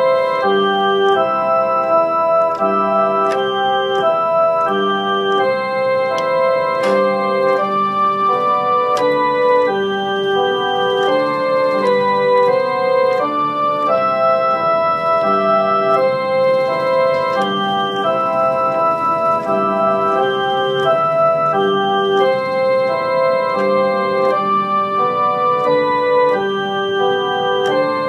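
Organ music: slow, sustained chords that change about once a second, with no break.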